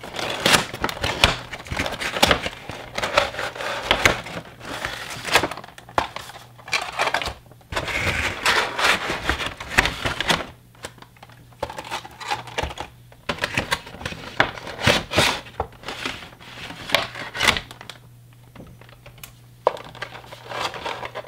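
Cardboard box being opened and clear plastic clamshell packages of model tank cars pulled out and handled: rustling, crinkling plastic and irregular clicks and taps. The sound is dense in the first half and thins to scattered sharp clicks later, as the packages are set down.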